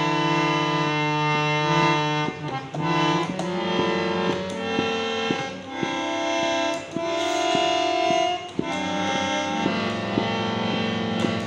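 Hand-pumped harmonium sounding several reeds at once in held, unmelodic clusters as a baby presses the keys. The notes change every second or so, with light key clicks at the changes.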